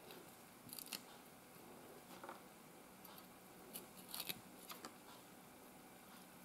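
Faint, soft scrapes and clicks of a kitchen knife peeling the skin off an avocado half, a few short scratches at uneven intervals.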